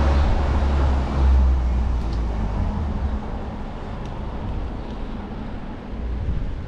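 Wind buffeting the microphone of a camera carried on a moving bicycle, with rushing road noise underneath. It is a heavy low rumble, strongest for the first three seconds, then easing.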